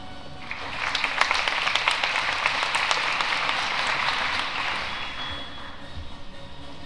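Audience applauding: clapping swells about half a second in and fades away over the last couple of seconds.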